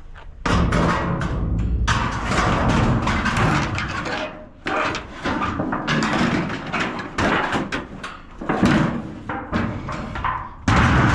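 A large sheet of steel being handled, flexing and wobbling with a booming, rattling, thunder-like crash, made up of many quick knocks and rumbles. It stops briefly about four and a half seconds in, then goes on.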